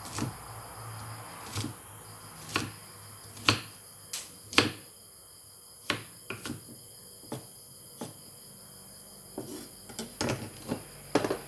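Kitchen knife striking a thick round wooden chopping block as vegetables are sliced: single sharp knocks at uneven intervals, coming faster near the end.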